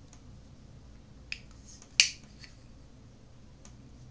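Plastic mini tripod clicking as it is handled. There are a few sharp clicks, and the loudest comes about two seconds in.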